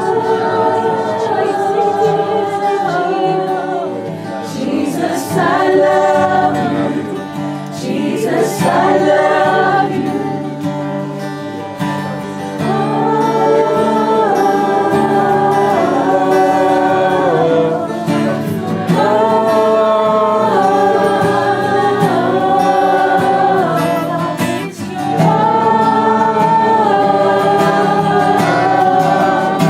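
Many voices singing a worship song together in long, held phrases of a few seconds each.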